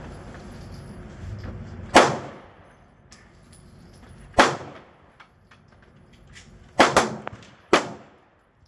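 Pistol shots, five in all and unevenly spaced: one about two seconds in, one near the middle, then a quick pair and a last shot near the end.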